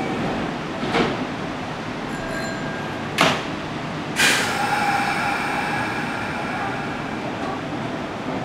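Kintetsu electric commuter train (1252- and 1026-series) standing at the platform. Two sharp knocks about one and three seconds in, then about four seconds in a sudden loud burst followed by a steady sound of several held tones, as the train readies to depart.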